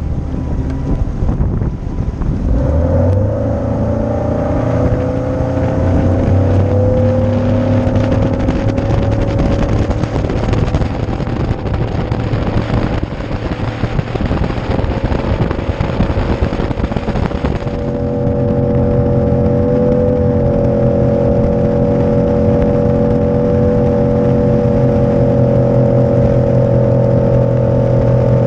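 Mercury 150 Pro XS four-stroke outboard on a Tracker bass boat throttling up about two and a half seconds in, rising in pitch, then running steadily at speed. Wind and water rush over it until about eighteen seconds in, after which the engine's steady note stands out.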